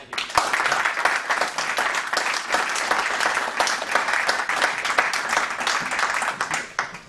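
Small audience applauding, many hands clapping at once, which begins just as the speech ends and dies away near the end.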